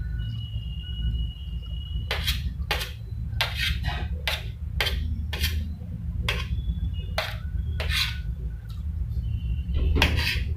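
Steel spoon scraping and clinking against a steel plate while scooping fried rice: about a dozen short sharp scrapes and clicks, mostly between two and eight seconds in and again near the end, over a steady low hum.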